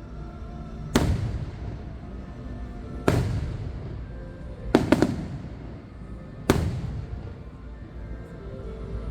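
Aerial fireworks shells bursting: single sharp bangs about a second in and at three seconds, a quick triple near five seconds, and one more at six and a half, each trailing off in a rolling echo.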